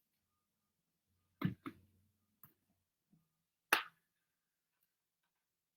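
A few short clicks and taps from a hair straightener being handled and clamped on a section of hair: a close pair, two faint ones, then one sharper click near the middle.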